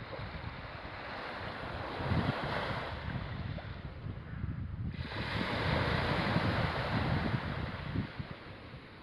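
Sea waves washing, with wind buffeting the microphone; the wash swells about two seconds in and again in a longer surge past the middle.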